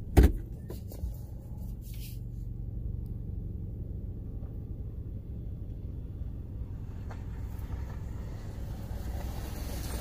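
Vehicle engines idling in a steady low hum as a pickup truck rolls up alongside on a dirt road. A single sharp thump a fraction of a second in.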